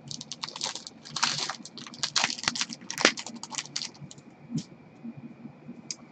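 Hockey card pack's wrapper crinkling as gloved hands tear it open and handle the cards, a dense run of crackles for about four seconds, then a few scattered clicks.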